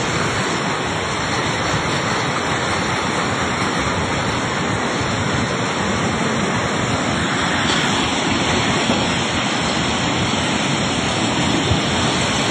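Swollen, flooding river rushing past: a loud, steady wash of churning water.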